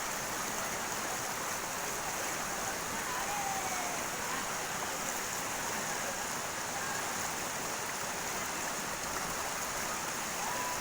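Steady rush of water from a waterfall, an even, unbroken noise.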